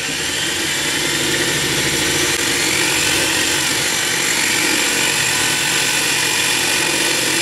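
Electric drill with a 5/16-inch bit boring up through the steel frame rail of a 1988 Pontiac Fiero, the motor running steadily under load after building up over the first second.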